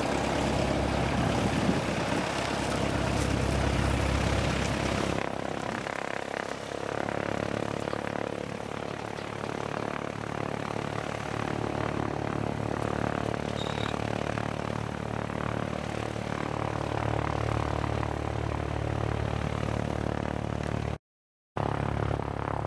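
Pickup truck engine running as it tows a floatplane on a wheeled cart. The sound is loudest and noisiest for the first five seconds, then settles to a steadier, lower hum, and cuts out briefly near the end.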